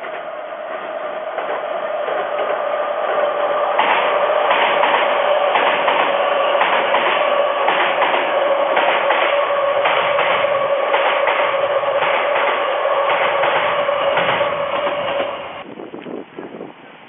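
Odakyu Line electric train passing close by, with a steady whine and rapid clattering of wheels over rail joints as the cars go past. The clatter and whine stop abruptly near the end.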